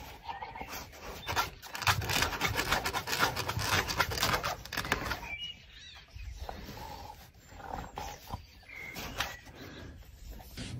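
A dog pressing and nosing at the mesh fabric of a raised pet cot to reach a tennis ball underneath: scraping and rustling with the dog's breathing and low animal noises. The scraping is busiest in the first half and quieter after.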